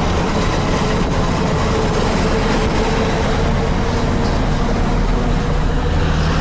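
KamAZ truck's diesel engine and road noise heard inside the cab while driving, a steady loud drone with a thin constant whine over it.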